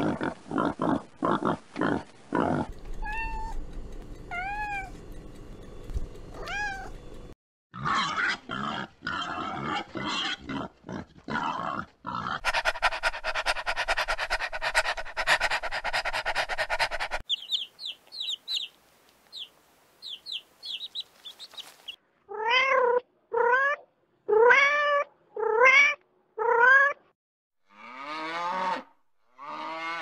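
A series of different animal sounds, one after another. Wild boar grunt in quick short bursts at the start. Later come assorted short calls, about five seconds of steady rapid rasping, and faint high chirps, and in the last third a cat meows about five times, each call rising and then falling.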